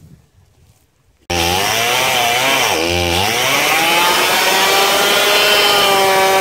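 Stihl MS170 two-stroke chainsaw starts sounding suddenly about a second in, loud and at high revs. Its revs dip and recover once, then climb and hold high.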